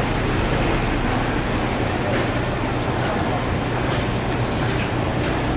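Steady machine-like hum over constant background noise, with a few faint light ticks and a brief thin high whistle about three and a half seconds in.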